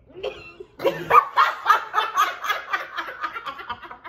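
Women laughing, a quick run of short, pitched laughs starting about a second in and carrying on steadily.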